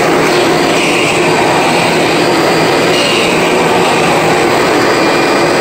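Kirby upright vacuum cleaner running steadily at full speed on carpet, a loud even whir. It is fitted with a replacement brush roller and cord after restoration.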